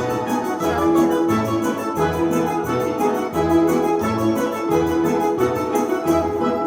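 Instrumental music with sustained keyboard-like notes over a repeating bass line and a steady beat.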